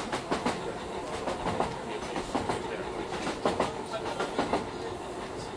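Ambience inside a moving passenger train: a steady running rumble with frequent, irregular clicks and knocks of the wheels and carriage over the track.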